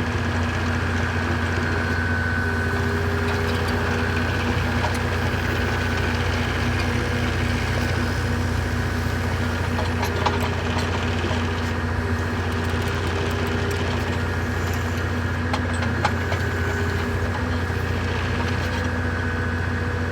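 John Deere 35G mini excavator's diesel engine idling steadily, with a few faint clicks about halfway through.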